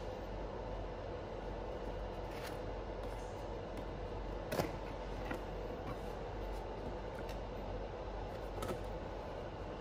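Cardboard packaging being handled: a few sharp taps and clicks as the box's carry handle is lifted and its top flap opened, the loudest about four and a half seconds in, over a steady background hum.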